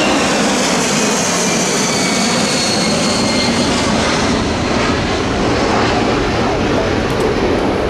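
Boeing C-17A Globemaster III's four Pratt & Whitney F117 turbofan engines at take-off power as the aircraft climbs out low and passes. It makes a loud, steady jet noise, with high whines that slide down in pitch as it goes by and heads away.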